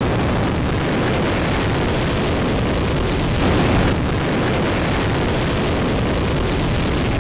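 RS-25 hydrogen-fuelled rocket engine firing on a test stand: a loud, steady, dense rumbling roar of exhaust, swelling briefly about three and a half seconds in.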